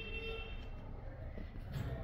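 A low steady rumble under quiet background music, whose held notes fade out about half a second in.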